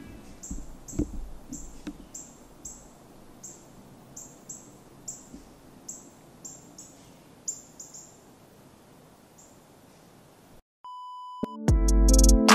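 Short, high chirps repeat at about two a second, unevenly spaced, over a faint outdoor background, and stop after about nine seconds. Near the end comes a brief steady electronic beep tone, and then electronic music with a beat starts.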